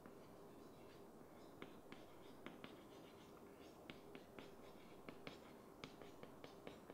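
Chalk writing on a chalkboard: faint, irregular taps and short scratches of the chalk against the board.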